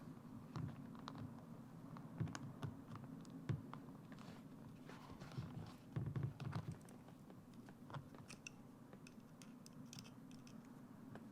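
Faint, irregular small clicks and scratching of a metal zipper slider being worked by hand onto the zipper tape and teeth, where the slider catches at a tight, corroded top end of the zipper.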